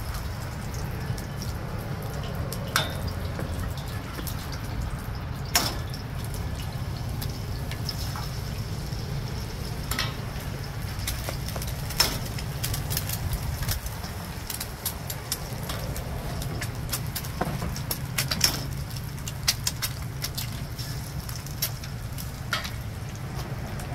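Eggs frying in hot bacon grease in a stainless steel pan over a charcoal grill, sizzling with a steady crackle of small pops. Three sharp cracks, a few seconds apart, come as eggs are broken on the pan's edge. A low wind rumble runs underneath.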